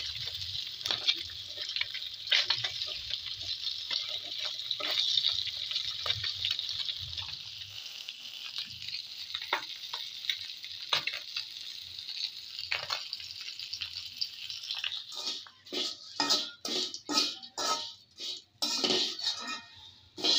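Small dhela fish frying in oil in a pan: steady sizzling, with scattered clicks of a metal spatula against the pan. In the last few seconds there is a run of sharp scraping strokes, about two a second, as the spatula stirs and scoops the fish.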